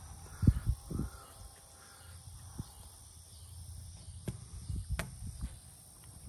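A few short, hoarse bird calls, crow-like, with several dull thumps; the two loudest thumps come about half a second and one second in, and there is a sharp click about five seconds in.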